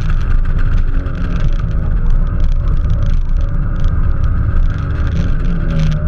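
Celica Supra's 7M-GE inline-six engine running on track, with a heavy low rumble and a pitch that shifts only a little.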